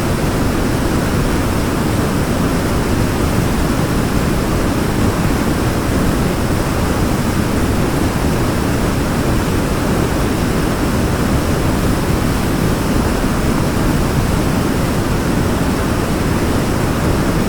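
Waterfall: water pouring and splashing in a steady, unbroken rush, deep and full-bodied.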